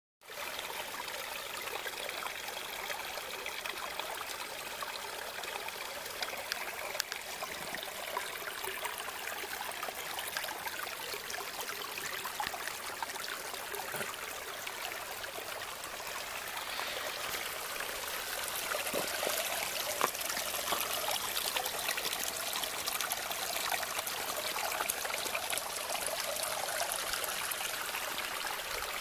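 Small snowmelt stream trickling over rocks, a steady rush of water that grows somewhat louder in the second half.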